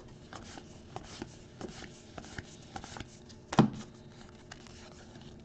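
Hands sliding and flicking trading cards through a freshly opened pack: a run of light card-on-card clicks and rubs, with one louder snap about three and a half seconds in.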